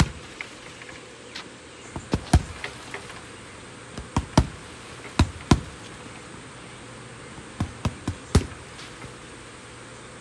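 Boxing gloves punching an Everlast heavy bag: about a dozen sharp thuds, mostly in quick pairs and triples, with pauses of a second or two between combinations.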